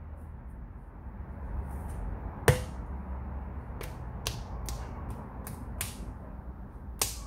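Potter's kick wheel turning as wet clay is centered on it: a low steady rumble, one loud click about two and a half seconds in, then sharp clicks repeating two or three times a second.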